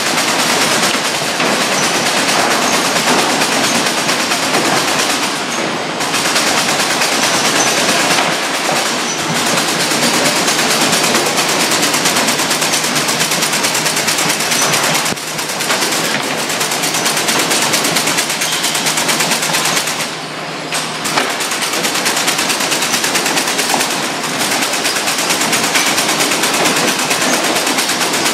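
Wire-bound crate stitching machine running, its stapling heads driving staples over wire into wooden slats in a loud, rapid, continuous clatter that eases off briefly a few times.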